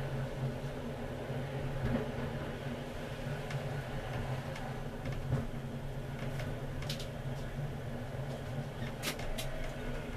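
Tram running along street track, heard from inside the driver's cab: a steady low hum with scattered light clicks. A few short, sharp high-pitched ticks come about two thirds of the way in and again near the end.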